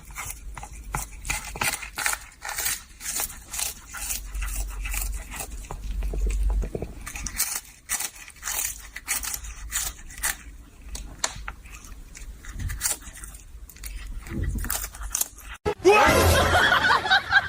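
A pet chewing crunchy food: a quick, irregular run of crunches. Near the end it cuts off abruptly and voices start.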